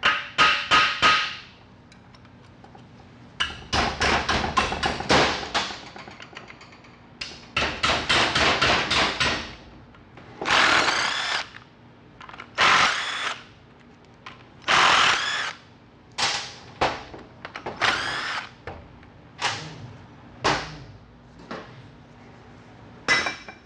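A few hammer blows on the tail-housing bolts of a TH350 transmission case, the shock loosening the bolts' threads in the case casting. Then a cordless impact wrench rattles in repeated short bursts as it backs the bolts out.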